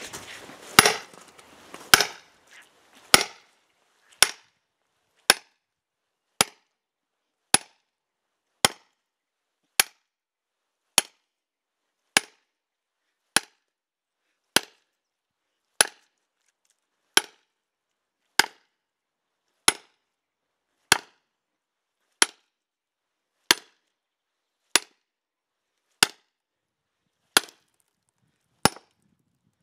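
Sledgehammer striking a steel splitting wedge, about two dozen sharp blows at a steady pace of a little more than one a second, driving the wedge into a spruce round until it cracks across.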